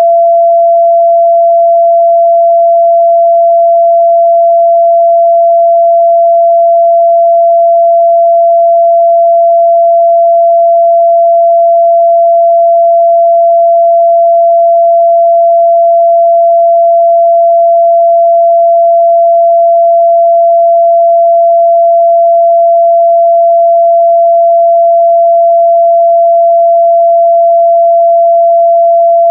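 A steady, loud 678 Hz sine-wave test tone, a single pure pitch held without change.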